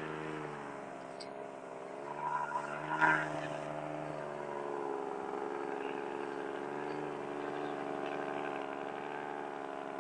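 Truck engine running with a steady drone that wavers slightly in pitch, with a brief louder sound about three seconds in.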